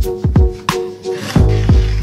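Background music with a steady beat: deep kick drum and bass under repeating held tones.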